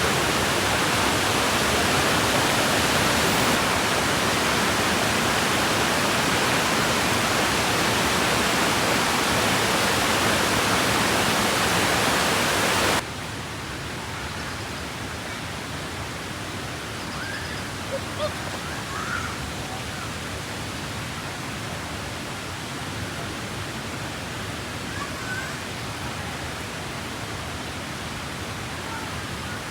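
Waterfall rushing with a steady roar of falling water; about 13 seconds in it drops suddenly to a quieter, more distant rush. A few faint short chirps sound over it later on.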